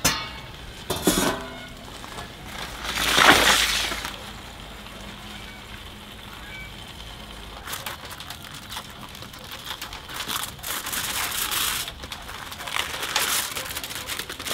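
A steel oven door knocking and scraping against the brick mouth of a wood-fired oven, loudest around three seconds in. From about eight seconds, aluminium foil crinkling as it is peeled back from a covered pan.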